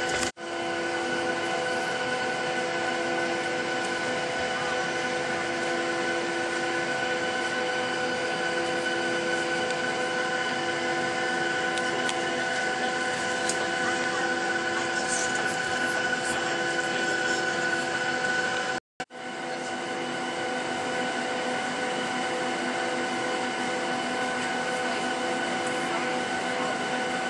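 Boeing 737-900ER cabin noise at a window seat while taxiing: the steady whine of its CFM56 engines at idle over a broad rumble. The sound drops out briefly twice, once just after the start and once about two-thirds through.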